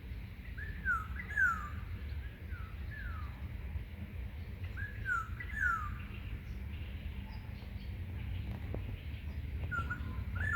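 Birds calling: short downward-slurred whistled notes in clusters of two to four, coming in three bursts, with fainter high chirps above them. A steady low rumble runs underneath.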